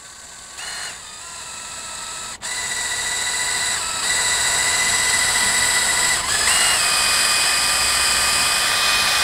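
Cordless DeWalt drill running slowly in reverse, its 9/64 bit reaming out a hole in a 3D-printed plastic prop guard. The motor whine builds over the first few seconds, cuts out briefly, and shifts in pitch a few times as the trigger is worked.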